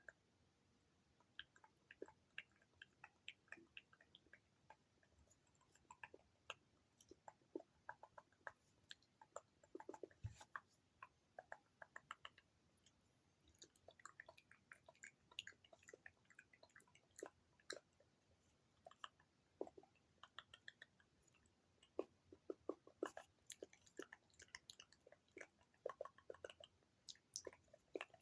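ASMR mouth sounds made close to the microphone: quiet wet clicks and smacks of the lips and tongue, coming irregularly, with denser clusters toward the end.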